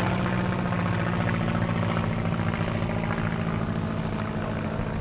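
Continental O-200 flat-four air-cooled engine and propeller of a Pietenpol Air Camper droning steadily as the light aircraft flies overhead, slowly growing fainter.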